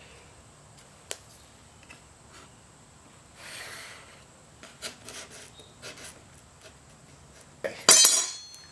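Felt-tip marker scratching along a metal straightedge on a board, with small taps and clicks of the ruler and hands. Near the end the steel straightedge clinks and rings as it is lifted off the workbench.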